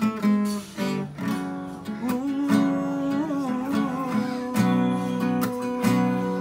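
Acoustic guitar being strummed, chords ringing and changing with repeated strokes.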